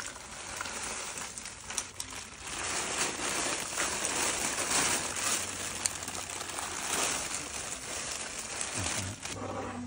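Thin plastic bag crinkling and rustling while a bagful of dry, winged red sanders seed pods is shaken out into a plastic bucket, the pods scraping and clicking as they slide in. The noise is steady and crackly, loudest in the middle.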